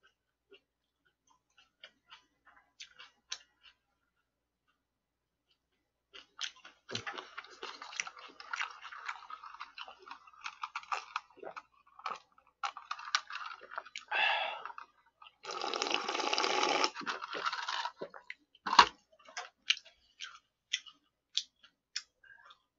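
Close-miked eating sounds: scattered small mouth clicks, then a long stretch of wet chewing and drinking from a cup. One sharp knock comes about three-quarters through, followed by more small clicks.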